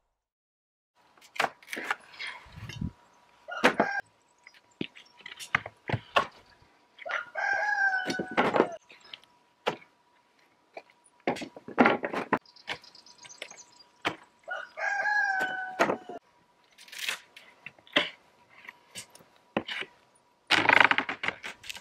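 A rain-soaked wooden pallet being pried apart with a pry bar: repeated knocks, cracks and clatters of metal on wood and loosened boards. Two drawn-out pitched squeals come about a third of the way in and again about two-thirds in.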